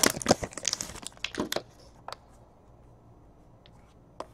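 Foil trading-card pack wrapper crinkling and tearing open in quick bursts for about the first second and a half. After that only a few faint clicks as the cards are handled.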